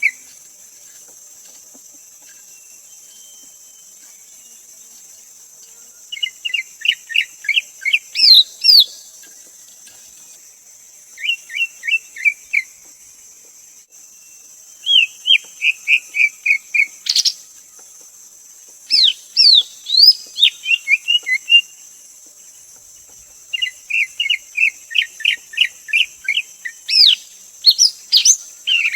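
Greater green leafbird singing: five phrases of rapid, bright whistled notes, each a second or two long with pauses of a few seconds between, some notes sweeping higher. A steady high insect drone runs underneath.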